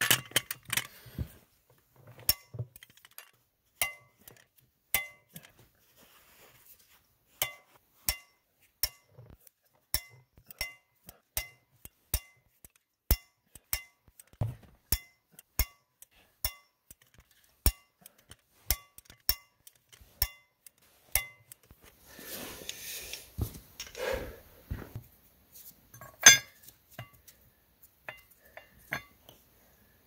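Click-type torque wrench on the beadlock ring nuts of a military truck wheel, giving sharp metallic clicks with a slight ring, about one a second, as the nuts are brought to 220 foot-pounds. Near the end there is a few seconds of rustling and one louder metal clink as the wrench is moved.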